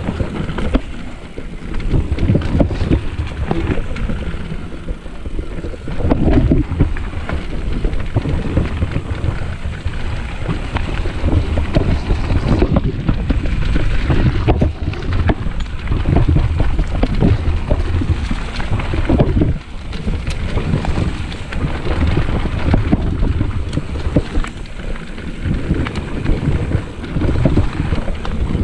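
Wind buffeting the camera microphone, with mountain bike tyres rolling over a dirt trail and the bike rattling and knocking over bumps.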